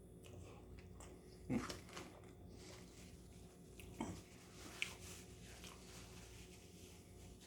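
Faint chewing and mouth sounds of a person eating a burger, with a few short, louder sounds about one and a half, four and five seconds in.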